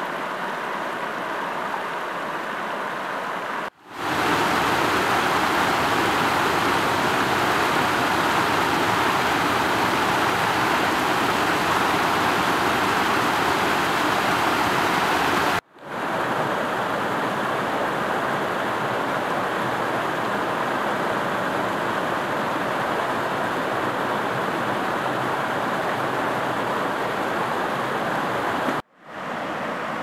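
Creek water rushing over small rock cascades and waterfalls, a steady rushing noise. It breaks off briefly three times and comes back at a new level; the loudest stretch runs from about four to sixteen seconds in.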